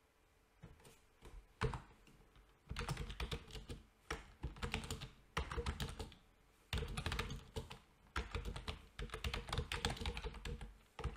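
Computer keyboard being typed on: quick runs of keystrokes with short pauses between them, after a single louder keystroke about a second and a half in.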